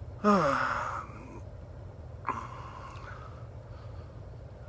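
A man's short sigh with falling pitch near the start, then a brief soft breathy noise about two seconds in, over a steady low hum.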